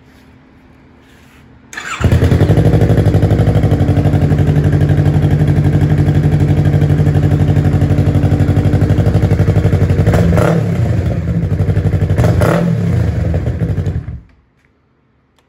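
Yamaha R3's 321 cc parallel-twin engine breathing through an M4 Street Slayer carbon slip-on muffler: started about two seconds in, it idles steadily and loud, takes two short blips of the throttle, and is switched off about fourteen seconds in.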